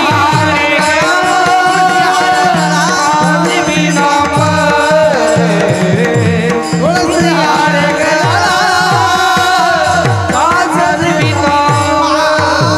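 Marathi devotional bhajan music between sung lines: tabla-style hand drumming, with bass strokes that glide down in pitch, under a wavering melodic line.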